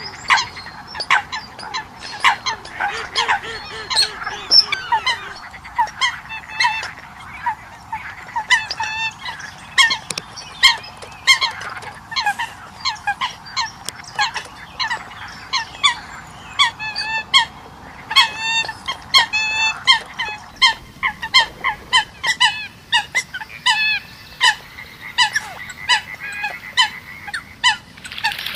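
Eurasian coots calling: a long run of short, sharp calls, several a second, some in quick stuttering clusters, over a steady background hiss.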